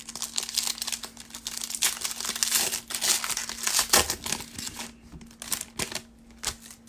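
Foil wrapper of a 2019 Certified football card pack crinkling as it is torn open and handled, dense for about the first four and a half seconds, then a few lighter rustles.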